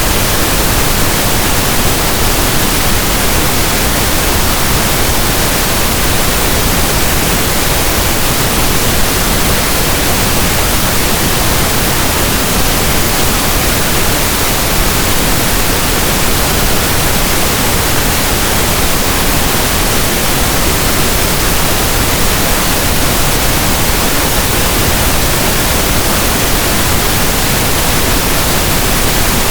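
Steady, unbroken pink noise: a soft static hiss like a radio tuned between stations, loud and unchanging.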